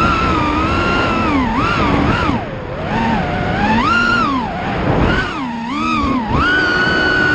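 FPV racing quadcopter's brushless motors whining, the pitch rising and falling repeatedly with the throttle as it flies the track.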